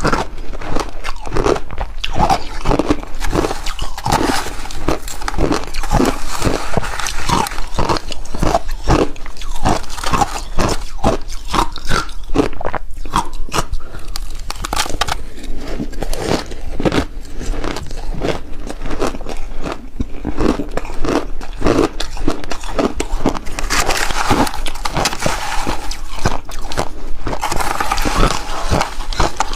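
Close-miked crunching and chewing of a chunk of shaved, refrozen ice: a dense, continuous run of crisp crunches, with two denser, brighter spells of crunching near the end.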